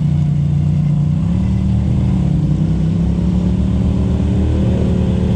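Side-by-side UTV engine running under load on a climb, rising in pitch about four seconds in.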